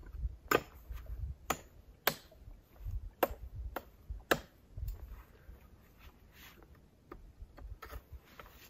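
Sharp cracks of dry dead wood as a dead branch is broken up: about five loud snaps at uneven intervals in the first four and a half seconds, then a few fainter ones.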